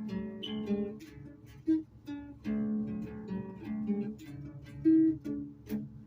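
Music played on a plucked string instrument: short phrases of single notes and chords, with brief pauses between them.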